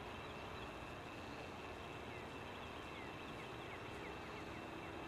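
Faint outdoor ambience over a steady hiss, with a run of faint short falling chirps about halfway through.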